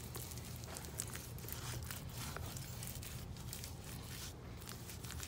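Irregular scraping, crinkling and clicking handling noises from mold-making work, over a steady low hum.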